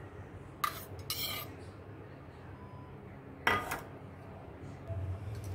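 Steel spoon scraping and clinking against a steel plate while spooning tamarind chutney onto chaat: short scrapes near the start and again about three and a half seconds in.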